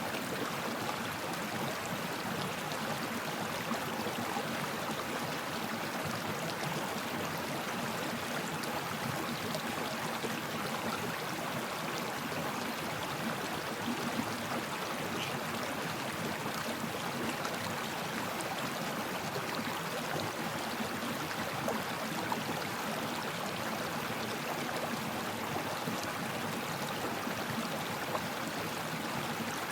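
Stream water flowing steadily: an even, unbroken wash of noise.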